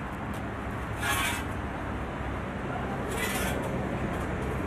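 Two short rasping scrapes on sheet metal, about two seconds apart, over a steady low rumble.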